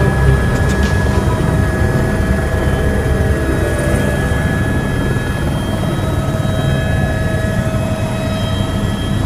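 Helicopter turbine engine and rotor running steadily, heard from inside the cabin: a loud, even rumble with a steady high turbine whine over it.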